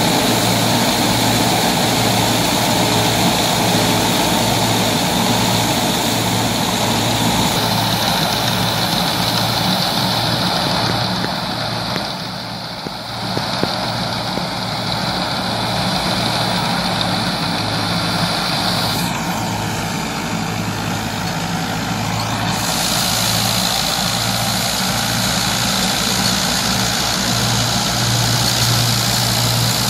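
Massey Ferguson 165 tractor running steadily under load while driving a wheat straw chopper through stubble, the engine's hum and the chopper's noise together. The sound dips for a moment a little before halfway.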